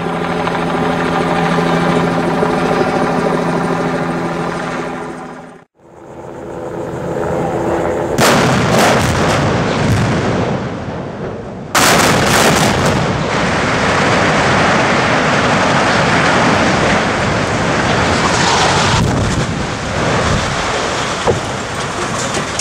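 Explosive demolition charges going off in a rapid string of sharp cracks from about eight seconds in, with a heavier blast near twelve seconds. A long, continuous rumble follows as the structural-steel boiler houses and reinforced-concrete chimneys collapse. The first few seconds, before a cut, hold a different steady pitched tone.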